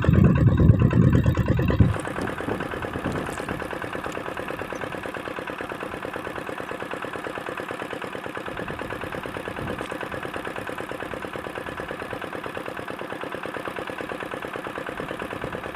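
A diesel engine running steadily at a low, even speed, a fast regular beat that does not change. A loud low rumble covers the first two seconds.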